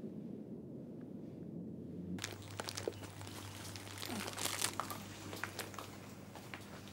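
Crinkling and crackling of a plastic crisp packet being handled, a run of sharp irregular crackles over a steady low hum. About two seconds in it begins abruptly, replacing a low dull rumble of outdoor ambience.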